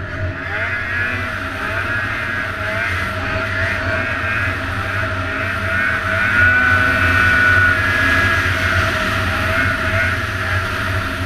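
Snowmobile engine running at speed across snow, heard from the rider's seat, with a high whine over it; it gets louder about six seconds in and eases off slightly near the end.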